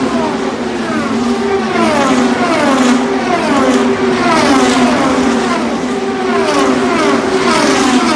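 IndyCars' twin-turbo V6 engines passing one after another at speed. Each car is a high engine note that falls steeply in pitch as it goes by, about one a second, over a steady drone from the rest of the field.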